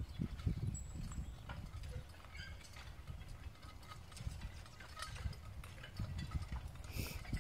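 Team of two draft horses working a field implement: faint hoof falls and clinks of harness and chains, over a low rumble of wind on the microphone. There is a brief hiss near the end.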